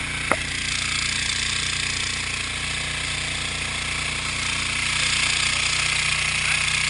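A motor running steadily on the boat under a constant rushing hiss of wind and water, with one sharp click about a third of a second in.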